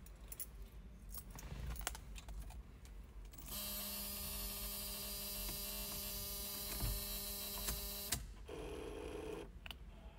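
A few light clicks at the steering column. Then, about three and a half seconds in, the 1972 Chevrolet Monte Carlo's dash warning buzzer sounds steadily for about four and a half seconds and cuts off suddenly as the ignition is switched on. A short, lower buzz follows about a second later.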